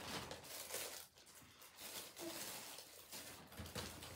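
Faint rustling and crinkling of gift wrapping paper and plastic gift bags being handled.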